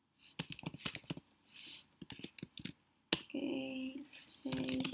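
Typing on a computer keyboard: a quick run of key clicks for about three seconds. After that come short, steady-pitched voice sounds, two of them before the end.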